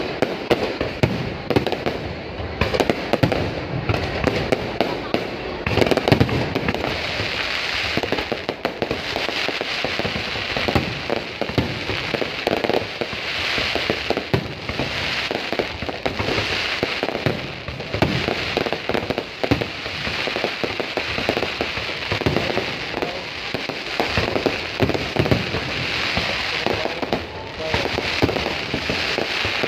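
Fireworks going off continuously: dense, overlapping bangs and crackling with no break.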